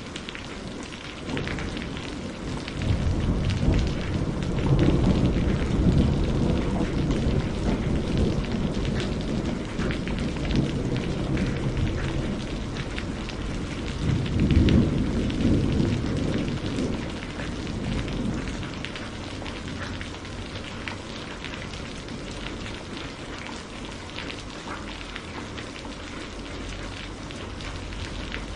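Steady rain with fine drop patter, and thunder rolling twice: a long low rumble a few seconds in, then another shorter roll about halfway, dying away to rain alone.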